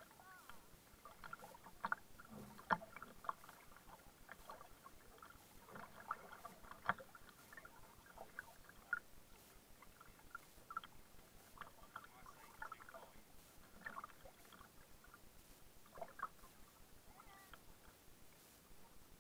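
Faint kayak paddling: the double-bladed paddle dipping and water splashing and dripping off the blades, with small irregular clicks and knocks on the hull.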